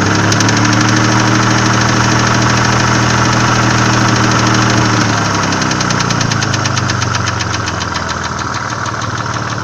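Nissan VG30E 3.0-litre V6 running at raised revs, then easing back toward idle about five seconds in, with a rapid ticking clatter throughout: the owner puts the knock down to the hydraulic lifters and valve cam lobes.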